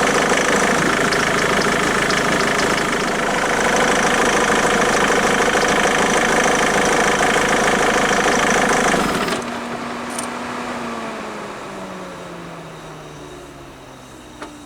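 Ford Mondeo MK3's 2.0 TDCi Duratorq four-cylinder diesel running at idle, then shut off suddenly about nine seconds in. After it stops, a faint whine falls steadily in pitch as something spins down.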